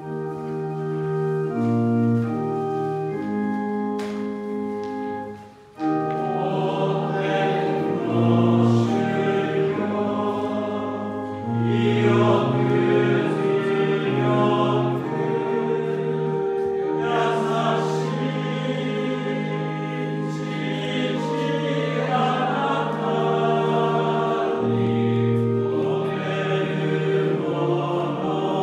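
A hymn sung by a group of voices over held organ-like chords. Chords alone open it, and after a short break just before six seconds the voices come in.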